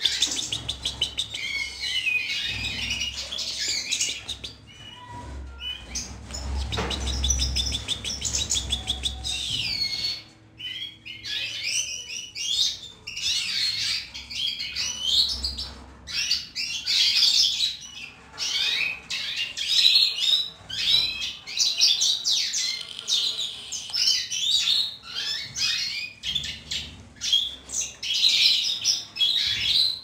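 A group of caged finches (mutation European goldfinches and canaries) chirping and twittering continuously in quick, overlapping calls and song phrases.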